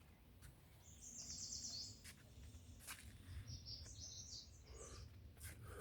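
Faint bird calls over near silence: a high, rapid trill about a second in, then a few more high chirps a little past the middle.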